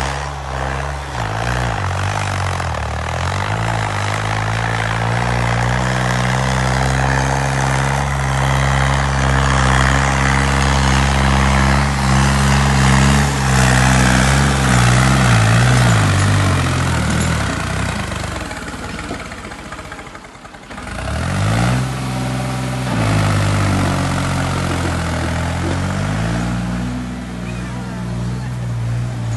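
Ford tractor's diesel engine working hard under load, hauling a heavily loaded trailer. The engine note climbs in the middle, the sound drops away sharply about twenty seconds in, then the engine picks up again and runs steadily.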